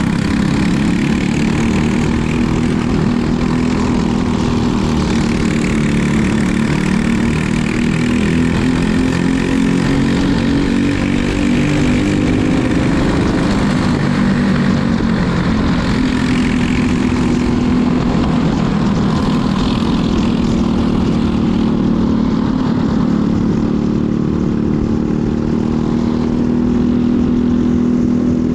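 Racing kart engine heard onboard at racing speed, a steady buzzing note whose pitch rises and falls a little with the throttle through the corners.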